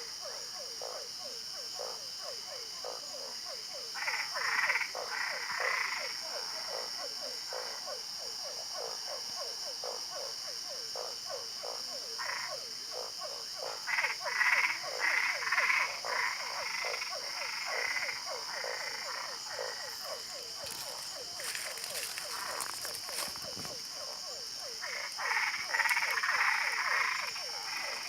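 Frogs calling: a steady run of rapid, repeated croaks at about four a second, with louder bouts of higher-pitched calls breaking in three times, over a steady high-pitched hum.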